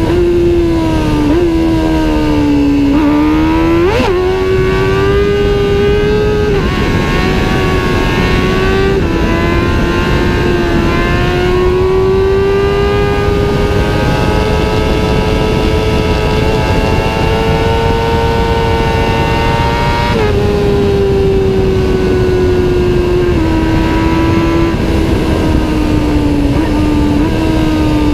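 Kawasaki Ninja ZX-6R inline-four engine through a Two Brothers aftermarket exhaust, running loud at high revs. Its pitch rises and falls gently with the throttle, climbs slowly and then drops back a little about twenty seconds in.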